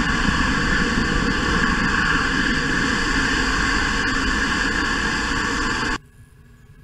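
Antares rocket's first-stage engines at liftoff, heard close to the pad as a loud, steady roar of rocket exhaust. It cuts off abruptly about six seconds in, leaving only faint outdoor ambience.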